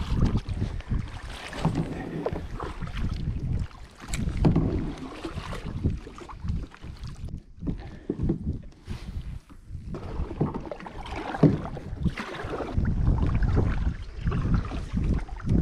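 Kayak paddles dipping and splashing in lake water as a double fishing kayak is paddled along, with uneven low wind rumble on the microphone.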